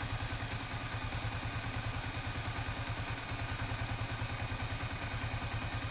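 Yamaha Sniper 155R's liquid-cooled single-cylinder engine idling steadily with an even pulse, warmed up while the new radiator's cooling system is bled of air.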